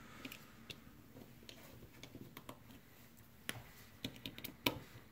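Faint, scattered clicks and ticks of a Phillips screwdriver turning small screws out of a plastic gaming mouse, with a few sharper clicks near the end.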